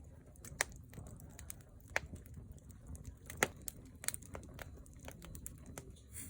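Firewood burning, crackling with irregular sharp pops over a low steady rumble of the fire; the loudest pops come about half a second, two seconds and three and a half seconds in.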